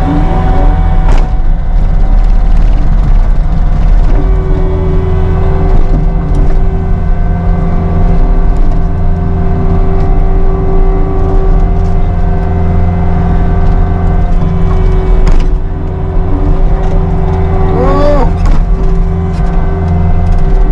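Cat 259D3 compact track loader's diesel engine running steadily under load, with a steady whine over it and a few knocks and clunks.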